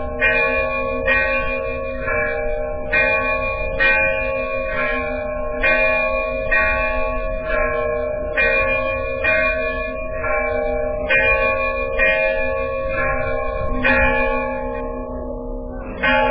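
Bells ringing in a slow, even peal, about one strike a second, each strike ringing on under a steady sustained hum of bell tones.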